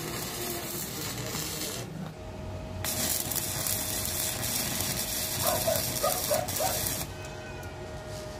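Stick welding arc on steel grill bars, in two runs: about two seconds, a short break, then about four seconds, stopping about a second before the end.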